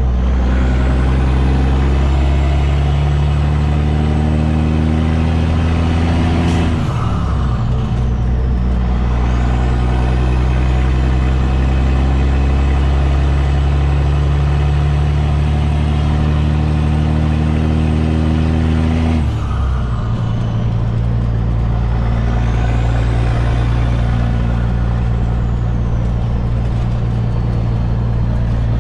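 Kenworth T800's Caterpillar C-15 diesel heard from inside the cab, pulling a heavy end dump load through the gears. Engine pitch climbs, drops with an upshift about a quarter of the way in, climbs again, drops with a second upshift about two-thirds in, then holds steady.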